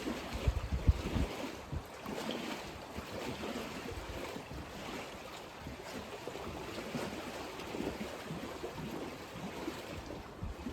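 Lake waves splashing against the shore in gusty wind, a steady wash of surf noise, with wind buffeting the microphone in low rumbles, strongest in the first second.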